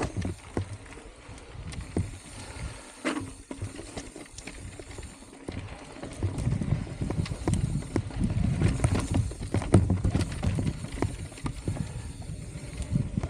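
Mountain bike riding a rough trail: low tyre and trail rumble with scattered knocks and rattles from the bike. The rumble grows louder about six seconds in.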